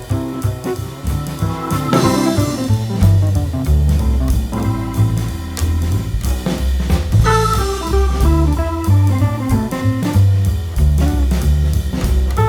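Background music: a band with drum kit, bass and guitar playing a steady beat in a jazzy, bluesy style.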